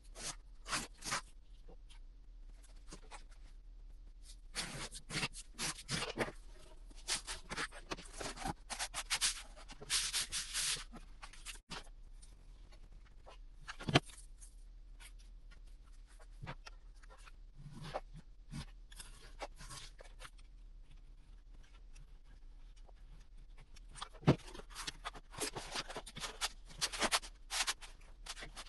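Cardboard being worked by hand: scratchy rubbing and cutting in two long spells, with a few sharp taps or clicks between them.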